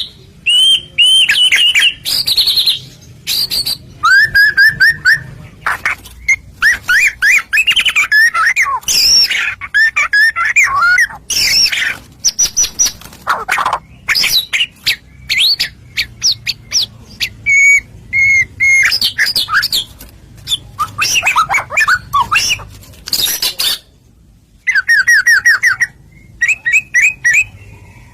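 White-rumped shama (murai batu) singing a loud, rapid, varied song of whistled notes, quick repeated trills and harsh notes in close-packed phrases, with one brief pause near the end.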